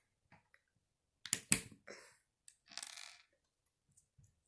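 Plastic Lego pieces clicking and clattering as they are picked up and handled: two sharp clicks about a second and a half in, then a brief rattle near three seconds, with light ticks between.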